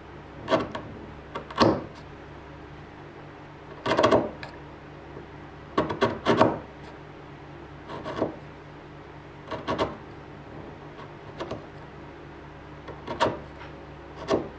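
Narrow bench chisel pushed by hand, paring and scraping wood out of a small square mortise in oak. About ten short, scratchy cuts come at irregular intervals.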